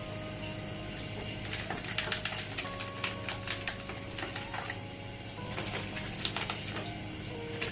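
Background music of held chords that change about every two and a half seconds, with scattered light clicks and scratching on top.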